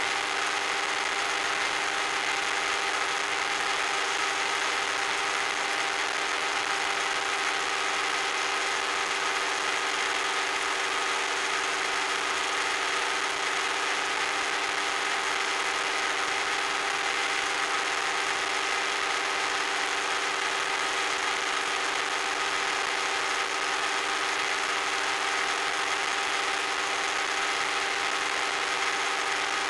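RC model plane's motor and propeller running steadily at a constant cruise setting, a few steady tones over an even rush of hiss, heard from on board.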